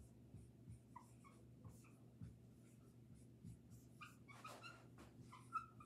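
Faint short squeaks and scratches of a dry-erase marker writing on a whiteboard, coming more often in the second half, over a low steady room hum.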